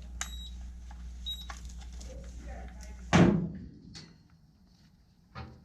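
A steady low hum with a few light clicks, then about three seconds in a single loud knock, like a hard object or panel striking, after which the hum stops and it goes nearly quiet.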